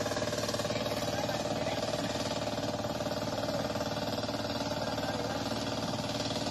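Hand tractor's engine running steadily under load as it plows a flooded rice paddy.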